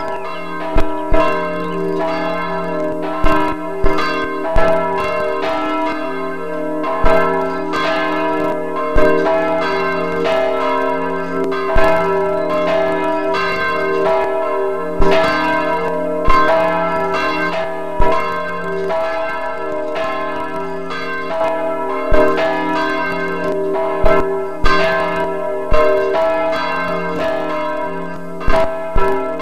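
Several motor-swung church bells pealing together. Clappers strike in an uneven pattern about once a second, and the overlapping tones of the bells ring on between the strikes.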